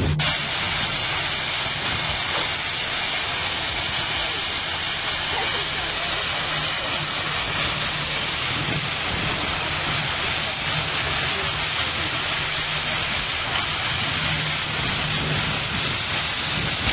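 Steam traction engine hissing steadily as steam escapes, over a low engine hum.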